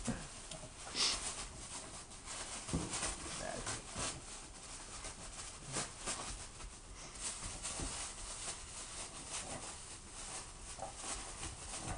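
Boston terriers rummaging in crumpled tissue and wrapping paper: the paper rustles and crinkles in many quick, uneven scrapes, with a dog sniffing and snorting among them.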